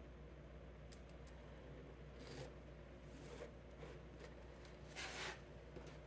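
Faint scratching strokes of a pen drawing sew lines on fabric squares along a clear acrylic quilting ruler, a few short strokes with small clicks. A louder rubbing scrape about five seconds in as the ruler and fabric are shifted on the cutting mat.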